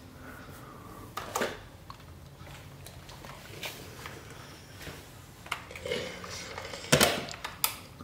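Quiet handling noises: a few scattered light knocks and rustles of fabric and tools on a cutting mat, the loudest knock near the end.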